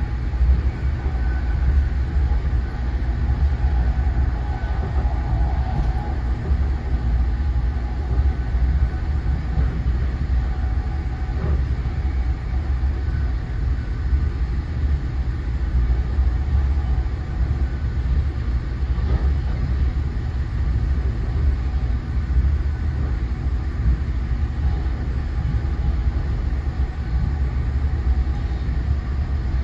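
Steady low rumble of an NJ Transit Multilevel passenger coach rolling along the track at speed, heard inside the upper-level cabin, with a faint whine drifting in and out over it.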